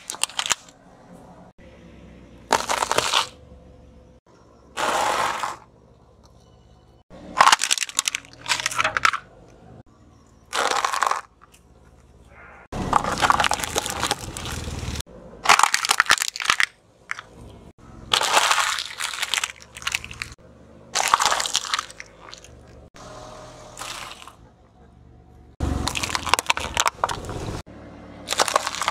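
A car tyre rolling over and crushing plastic toys, cups and wrapped candy: a series of about a dozen separate crunching, crackling bursts, each lasting a second or two, with short quiet gaps between them.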